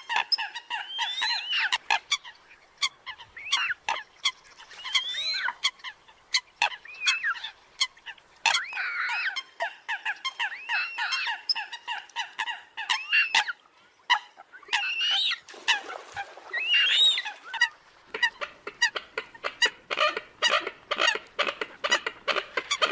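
Eurasian coots calling: a fast, dense string of short sharp clicking notes mixed with honking calls that bend up and down in pitch, several overlapping, with a brief lull about two-thirds of the way in.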